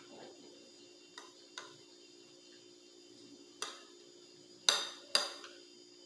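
Metal spoon clinking and scraping against a glass plate as food is scooped up: scattered light clinks, with the two loudest about half a second apart near the end.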